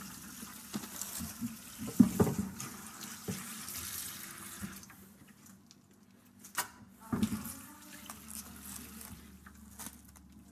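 Kitchen tap running into a sink, shut off about five seconds in. A few sharp knocks and clatters of kitchenware follow.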